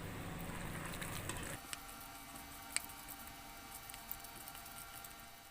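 Hands mixing a wet batter of grated elephant foot yam, gram flour and spices: soft squishing and pattering, louder for the first second and a half, with a single small click near the middle.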